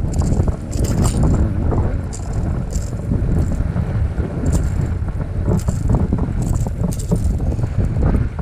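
Wind buffeting the microphone: a loud, steady low rumble, with short hissy gusts every second or so.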